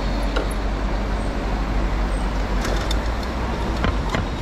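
City street traffic noise: a steady wash of passing vehicles, with a few short clicks scattered through.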